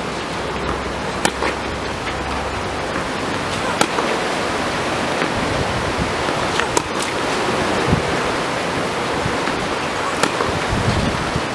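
Tennis ball being struck by rackets in a baseline rally: sharp pops every few seconds, with a couple of duller thuds in the second half, over a steady rushing hiss like wind on the microphone.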